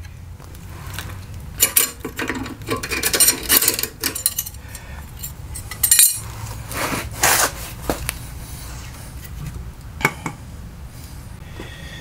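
Hands handling a washing-machine motor and metal parts on a concrete floor: irregular clinks, knocks and scraping, with sharper knocks about two, six and seven seconds in, over a steady low hum.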